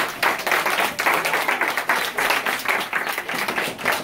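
Applause from a small audience: many quick hand claps running together without a break.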